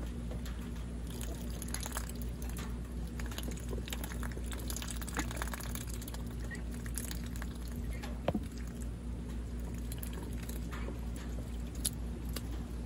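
Ducks dabbling and slurping in water and wet mud: irregular wet clicks, splashes and drips over a steady low hum.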